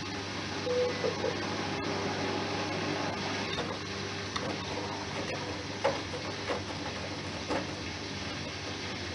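Bosch Serie 6 front-loading washing machine running: the drum turns with a steady motor hum, and a few soft knocks come from the tumbling load.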